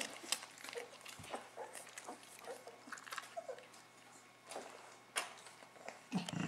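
Young puppies play-fighting: brief small grumbles and squeaks among scattered light clicks of mouthing and scuffling.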